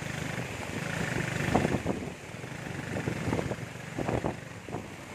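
Small motorcycle engine of a sidecar tricycle running steadily under the hiss of heavy rain, with a few louder rough bursts of noise along the way.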